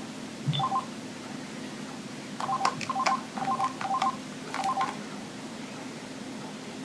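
Mobile phone keypad tones as the buttons of a Mitsubishi Trium Astral are pressed: one short two-tone beep with a click about half a second in, then a quick run of about seven key beeps between two and a half and five seconds in.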